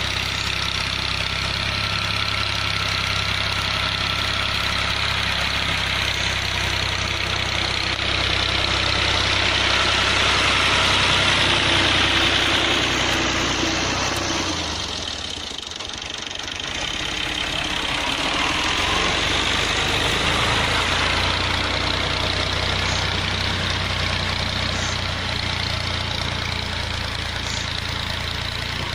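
Diesel engine of farm machinery running steadily under work, with a brief dip in level about halfway through before it picks up again.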